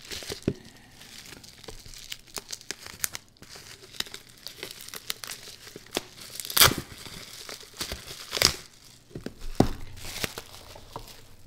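Plastic bubble wrap being handled and pulled off a small cardboard box: continuous irregular crinkling and crackling, with two louder crackles a little past the middle.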